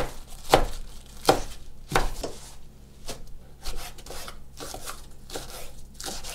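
Kitchen knife chopping leafy greens on a wooden cutting board. A few sharp knocks come about two-thirds of a second apart, then lighter, quicker cuts through rolled-up leaves.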